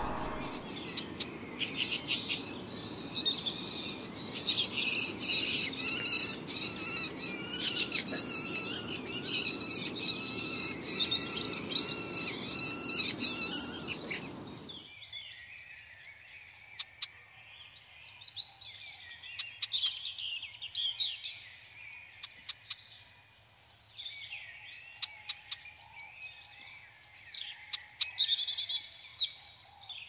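Red-backed shrike fledgling begging: harsh calls repeated about two a second, the young bird calling to be fed by its parents. About halfway through they stop abruptly, leaving only scattered, fainter bird calls and a few clicks.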